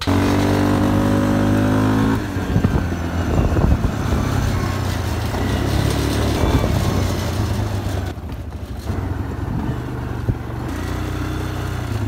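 A small vehicle's engine running. It holds one steady pitch for about two seconds, then turns rougher and noisier as the vehicle drives along a gravel track.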